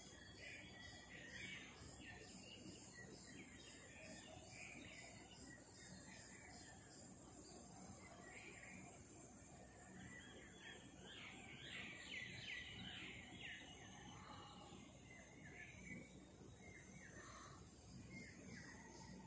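Faint outdoor ambience: small birds chirping now and then, most busily around the middle, over a high insect trill that pulses about once a second.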